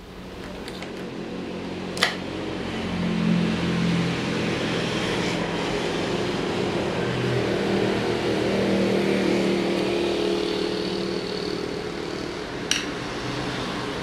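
A steady hum runs under a sharp click about two seconds in and another near the end; the last click is a bicycle chain's quick link snapping open in master-link pliers.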